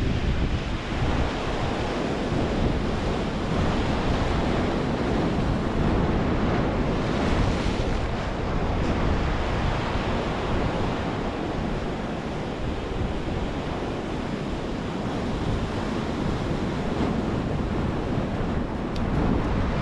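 Ocean surf washing against the shore, with wind buffeting the microphone.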